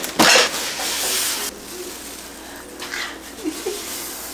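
Packaging handling: a loud rustling and scraping rush for about a second and a half as a countertop air-fryer oven, wrapped in a plastic bag and styrofoam end caps, is pulled out of its cardboard box, then quieter rustling as it is lifted.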